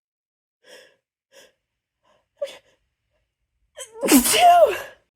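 A person's sneeze buildup: three short, faint gasping breaths, a sharp catch of breath, then one big voiced sneeze about four seconds in, lasting nearly a second. It is brought on by a tickling nose.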